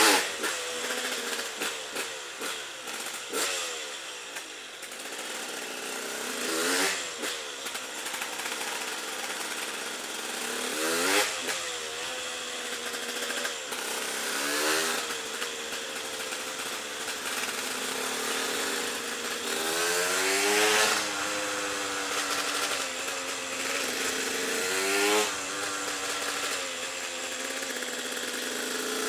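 KTM EXC 125 two-stroke single-cylinder engine ridden at low revs on a motorcycle, with a handful of short throttle blips whose pitch rises and falls back.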